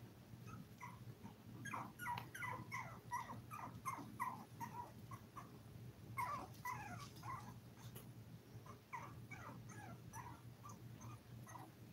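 Five-week-old toy poodle puppies whimpering in runs of short, high cries, coming in three spells, about 2, 6 and 9 seconds in. A steady low hum runs beneath.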